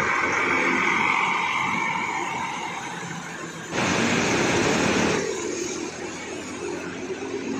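A bus running as it moves past. About four seconds in comes a sudden loud hiss of compressed air, lasting about a second and a half, from a bus's air brakes venting.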